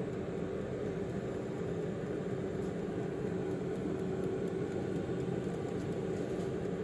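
Tower 4.3 litre air fryer running, its fan whirring with a steady hum while it heats.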